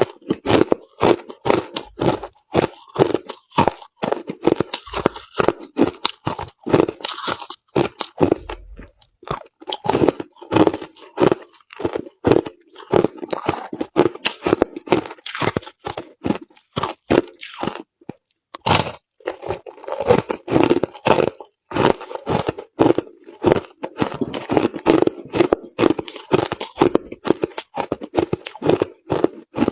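A person chewing a mouthful of crushed ice: a fast run of sharp crunches, several a second, with a short pause about two-thirds of the way through before the crunching resumes.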